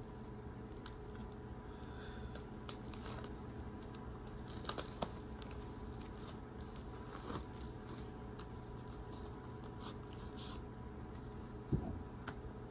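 Faint rustling and scattered small clicks of a slipcased CD's packaging being handled and unwrapped, over a steady low hum. There are a couple of sharper clicks about five seconds in and a louder knock near the end.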